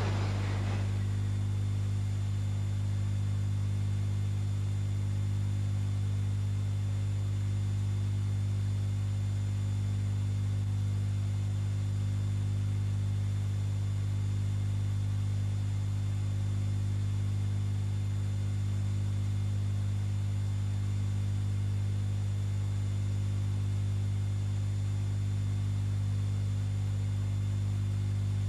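Steady low electrical mains hum with a faint hiss, unchanging. A brief noisy rush fades out within the first second.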